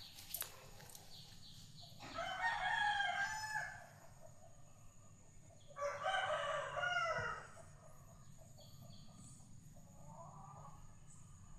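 Two long animal calls, each nearly two seconds and about four seconds apart, with a fainter, shorter call near the end over a steady low background hum.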